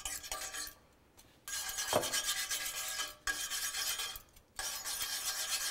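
Wire coil whisk scraping and rubbing against the bottom of a stainless-steel sauté pan, in four spells with brief pauses, as butter is whisked quickly into the pan broth so it doesn't separate.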